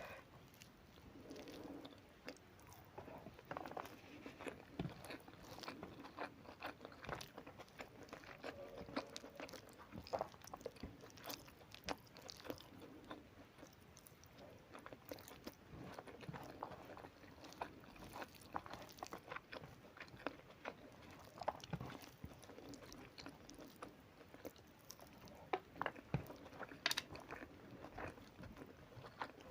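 A person chewing and biting food close to the microphone: wet mouth clicks and small crunches come every fraction of a second, with a few louder crunches near the end.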